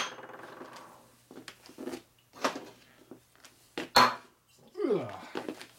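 Metal parts knocking on a steel workbench: a sharp clank with a short ringing at the start, a few lighter knocks, then another sharp knock about four seconds in. A steady low hum runs underneath.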